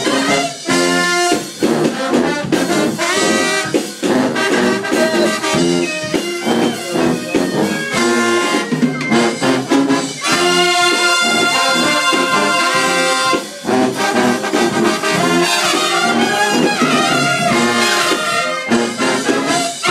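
A marching band's horn section of trumpets, sousaphones and clarinet playing a loud, brassy tune over a drum kit keeping the beat.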